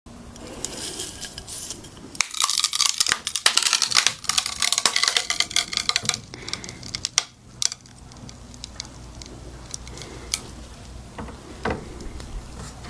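Frozen tartary-buckwheat tea ice cracking: a dense run of sharp crackles starting about two seconds in, thinning to scattered pops after about six seconds.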